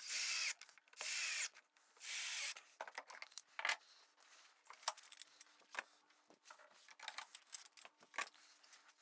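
Cordless drill driving pocket-hole screws into plywood in three short bursts, each a high whine that falls away as the trigger is let off. Scattered light knocks and rubbing follow as the joined boards are handled.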